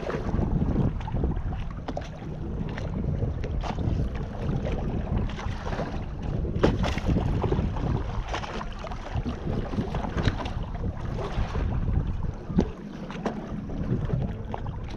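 Wind buffeting the microphone aboard a boat, with scattered knocks and clatter throughout.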